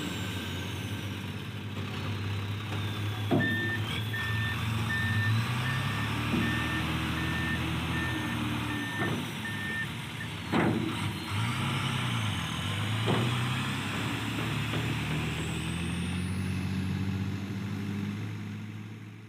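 Heavy off-road dump truck's diesel engine running steadily, rising and falling a little in speed. For several seconds in the first half a reversing alarm beeps at about two beeps a second, with a few sharp metallic knocks. The sound fades out near the end.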